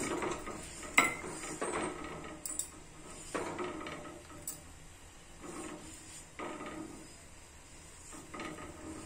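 Flat spatula pressing and scraping a spinach chapati against a hot iron tawa: a series of scrapes and taps a second or two apart, growing quieter.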